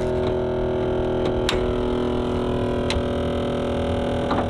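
Onboard air compressor, permanently installed under the bonnet, running with a steady hum. A few light clicks and knocks come from the bonnet being lifted and propped open.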